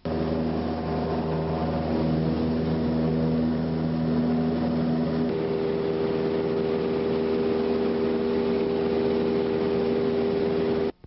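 Light aircraft's engine and propeller droning steadily in flight. About five seconds in, the drone's pitch shifts, a lower note giving way to a higher one.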